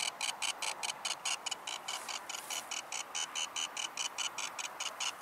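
Ghostmeter Pro electromagnetic field meter giving a rapid, steady electronic ticking, about six high-pitched pulses a second.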